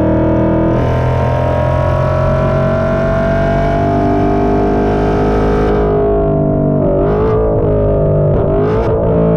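Ford Mustang Dark Horse's 5.0-litre Coyote V8 heard at the tailpipes through Kooks headers and an AWE exhaust, pulling under acceleration with its pitch climbing steadily. About six seconds in the pitch falls off, followed by a couple of quick blips near the end.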